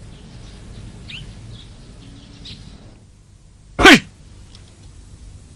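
A single short, loud vocal burst from a person about four seconds in, falling in pitch, over faint bird chirps.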